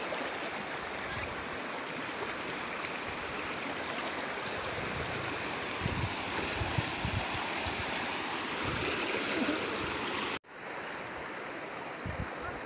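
Shallow rocky stream rushing close to the microphone: a steady hiss of running water. About ten seconds in it cuts off abruptly and resumes a little quieter.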